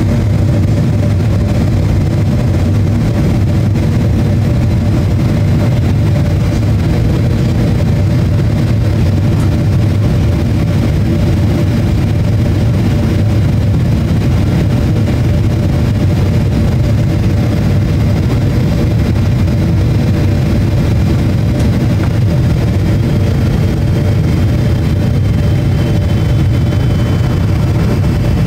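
Boeing 777-300ER's GE90 turbofan engines and airflow heard inside the passenger cabin on approach: a steady, even rumble with a faint whine over it.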